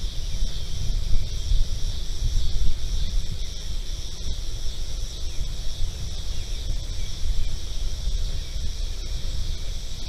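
Steady chorus of summer insects, a continuous high shrill in two bands, over gusty wind buffeting the microphone as an uneven low rumble, which is the loudest sound.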